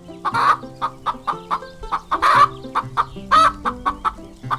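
Chicken clucking: a string of short clucks with three louder calls spread through it, over light background music.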